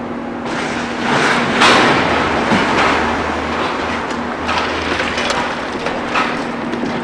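Concrete demolition rubble crashing and clattering down, loudest about a second and a half in and followed by scattered knocks and clatters, over the steady hum of a running machine engine.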